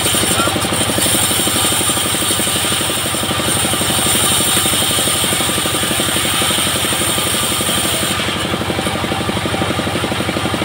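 Single-cylinder diesel engine of a homemade bandsaw sawmill running steadily with a fast, even chugging, the blade not cutting. A high hiss above it fades out about eight seconds in.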